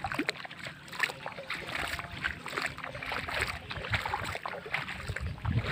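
Shallow water splashing and trickling in small irregular bursts, with a low wind rumble on the microphone.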